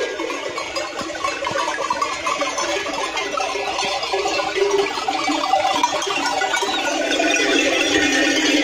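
Mixed flock of sheep and goats on the move, many neck bells ringing and animals bleating.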